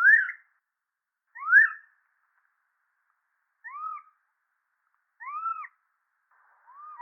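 A monkey giving short whistle-like calls, about one every one and a half seconds: the first two sweep upward in pitch, the next two rise and then fall, and another begins near the end.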